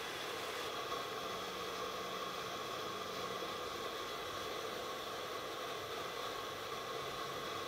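Facial steamer running with a steady hiss, steaming the skin under an enzyme mask to open the pores.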